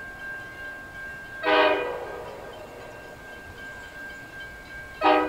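Horn of Aurizon diesel locomotive ACD6053 at the head of an approaching freight train, sounding two short blasts: one about a second and a half in, and a shorter one near the end.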